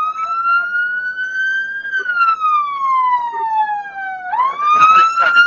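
Police car siren wailing in a slow rise and fall of pitch, about one cycle every five seconds, with a quick jump back up near the end. A few sharp knocks sound under it near the end.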